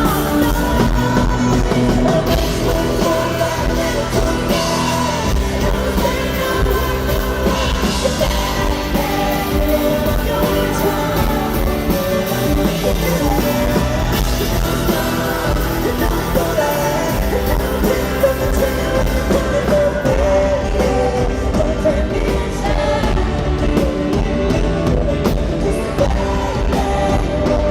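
Live country-rock performance: a woman sings the lead over a full band with drums and bass, with the echo of a large arena.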